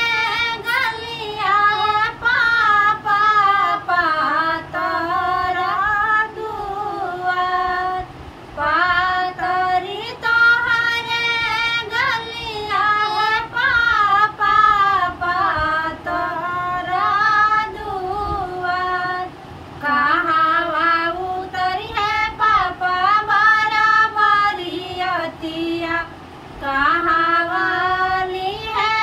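Women singing a vivah geet, a North Indian wedding folk song, with no instruments heard, in phrases of a few seconds with brief breaks between.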